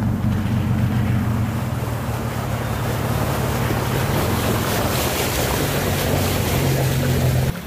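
Pickup truck engine running at low revs, with a rushing noise over it that swells through the middle.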